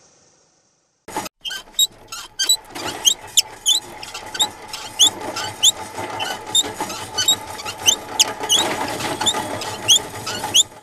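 Squeaking wheels of a heavily loaded hand cart being hauled, a cartoon sound effect: short rising squeaks, about two a second, over a rolling noise that grows louder near the end and then stops abruptly.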